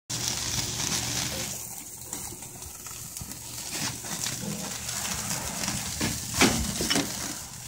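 Meat skewers sizzling over a charcoal grill, a steady hiss. Two or three short pitched calls stand out about six to seven seconds in.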